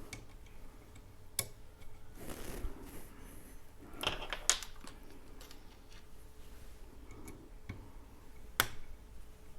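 Scattered sharp clicks and a brief scraping rustle from hand work on a 3D printer's extruder parts, with the loudest click near the end.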